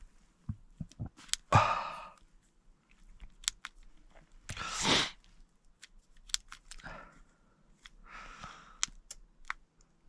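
Gloved hands handling a small heater remote control: scattered clicks and soft taps, with several short breaths close to the microphone, the loudest about a second and a half in and around five seconds in.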